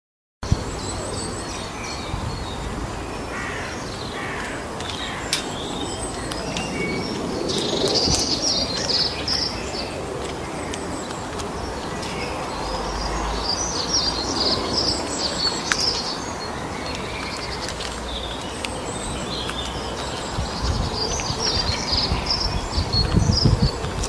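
Small songbirds chirping and singing in repeated bouts over a steady outdoor background hiss, with a few low rumbles near the end.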